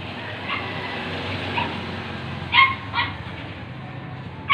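A dog yipping: short high calls, two close together about two and a half seconds in and another at the very end, over a steady low hum.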